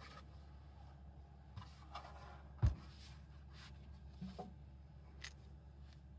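Scattered light clicks and knocks of parts and hand tools being handled during engine work, with one sharp, louder knock about two and a half seconds in, over a steady low hum.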